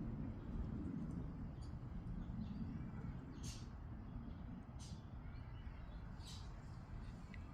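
Low rumble of fighter jets dying away into the distance, with short bird chirps every second or two.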